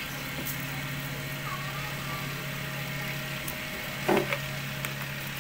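Steady motor hum of a cotton candy machine running, with a short louder sound about four seconds in.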